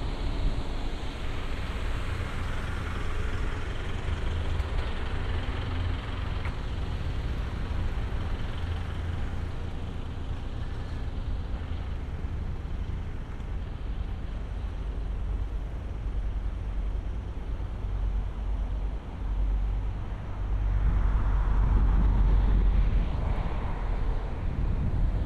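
Road traffic driving past on a main road: a flatbed truck goes by in the first few seconds, and a louder swell of passing cars comes near the end, over a steady low rumble.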